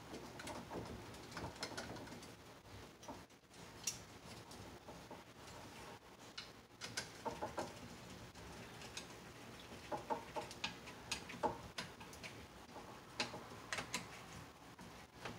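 Screwdriver turning the screw of a metal cable clamp connector: irregular light clicks and scrapes of metal on metal, coming in small clusters.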